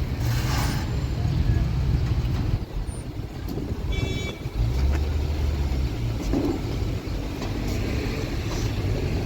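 Steady low rumble of a vehicle running, with a brief high-pitched tone about four seconds in.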